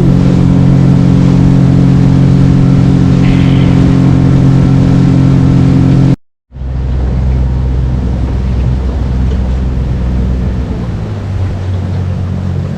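Small boat's motor running steadily at speed with a droning hum; about six seconds in the sound breaks off for an instant and returns as a lower, rougher drone.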